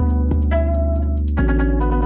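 Background music: plucked, guitar-like notes over a steady bass line, with a light ticking beat.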